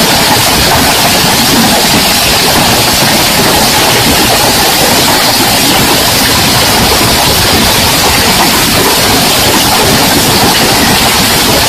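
Heavy hail pelting down: a loud, steady, dense clatter of hailstones striking the ground and nearby surfaces.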